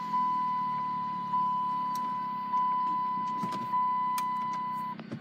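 Dodge car's engine idling just after starting, with the dashboard warning chime ringing in repeated strikes about every 1.2 seconds. The chime stops near the end.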